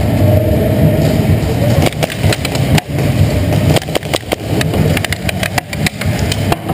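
A steady low rumble, then from about two seconds in a run of irregular sharp clicks and knocks, several a second, amid indoor airsoft play.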